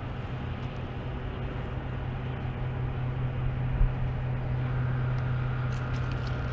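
Diesel locomotive of a maintenance-of-way train running with a steady low drone as it gets ready to shove back and couple on a short uphill grade. A faint steady higher tone joins about two-thirds of the way through.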